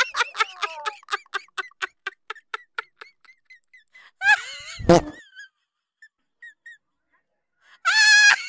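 High-pitched, squeaky staccato laughter: a quick run of 'ha' notes, about five a second, fading out over the first three seconds. A second laughing burst comes with a sharp clap-like knock about five seconds in, and a short shrill squeal of a laugh comes near the end.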